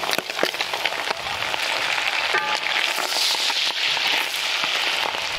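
Halved cherry tomatoes hitting the hot oil of a cast-iron pan of frying meat and vegetables, sizzling steadily with many small crackles, swelling a little past the middle.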